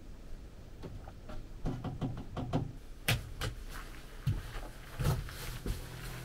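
Irregular knocks, clicks and rustles of close handling, starting about a second and a half in, with a few heavier thuds about four and five seconds in.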